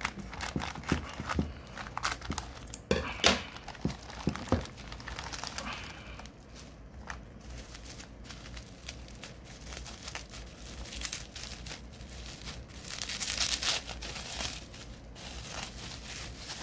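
Clear plastic bag and bubble wrap crinkling and rustling as they are handled and pulled off by hand. Sharp clicks and crackles come in the first few seconds, and a louder stretch of rustling comes about 13 seconds in.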